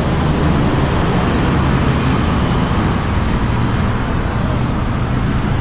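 Steady street traffic noise: vehicles running along a road, a continuous low hum under an even rush.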